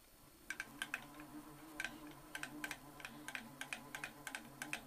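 Light, irregular clicking, several clicks a second, as a manual milling machine's table is cranked by hand, with a faint steady hum underneath.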